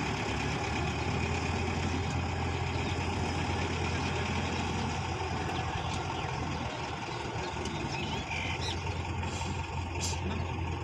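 Distant light truck's engine running steadily at low revs as the truck creeps slowly through a slalom of poles.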